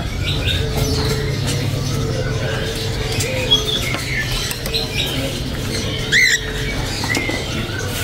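Caged songbirds chirping in short, scattered calls over a steady low hum, with one louder sweeping call about six seconds in.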